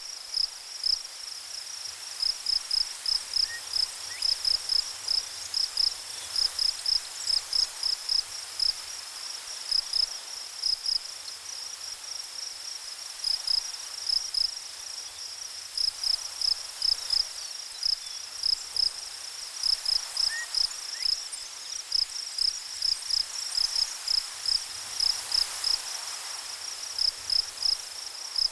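A cricket chirping: a high chirp repeated about three or four times a second in long runs broken by short pauses, over a faint even hiss.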